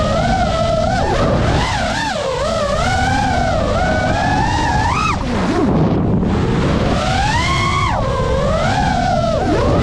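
FPV quadcopter's brushless motors and propellers whining, the pitch rising and falling with the throttle. About five seconds in the pitch drops sharply, as when the throttle is cut, then climbs back up, over a constant rush of air noise.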